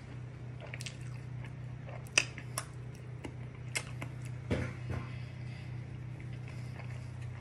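Close mouth sounds of a person eating naan and curry by hand: chewing, wet lip smacks and finger-licking, with a sharp smack about two seconds in and a few softer ones later. A steady low hum runs underneath.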